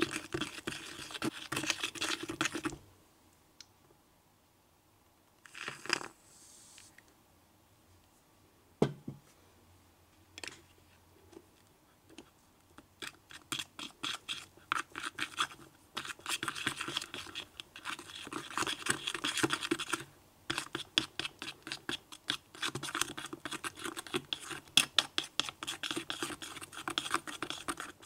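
A small wooden stick stirring a wet slime mixture with shaving foam in a tiny glass bowl, in runs of quick sticky clicks and scrapes against the glass. The stirring stops for several seconds after the start, with only a few single knocks, and picks up again about halfway through.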